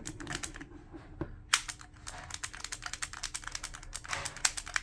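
3D-printed plastic rotating magazine on a T4E HDR 50 pistol being turned by hand, its teeth clicking in quick, irregular runs that get denser after about a second and a half.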